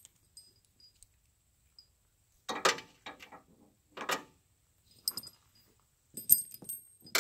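Steel links of studded tractor tire chains clinking and rattling in several short bursts as they are handled and hooked together, starting about two and a half seconds in.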